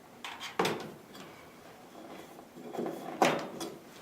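Cables and the power cord being pulled out of an iMac: short scraping, sliding handling noises, with a burst about half a second in and another around three seconds in.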